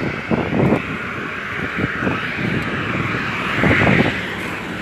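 Jet aircraft noise on an airport apron: a steady, loud rushing whine, swelling briefly near the end, with irregular low bumps in the first second.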